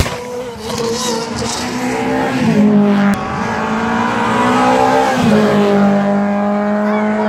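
Renault Clio rally car accelerating flat out, engine pitch climbing and dropping at two upshifts, about two and a half and five seconds in, then holding high as the car passes close by.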